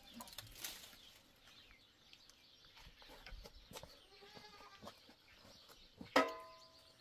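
A short hand broom sweeping a dirt yard in a few scratchy swishes, with faint goat bleats in the background. About six seconds in, a single sharp knock rings briefly and is the loudest sound.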